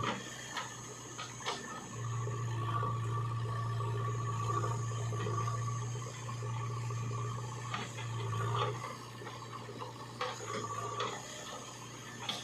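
Heavy diesel machinery running with a steady low drone that swells and eases every second or two, with a few sharp knocks about half a second, one and a half, eight and eleven seconds in.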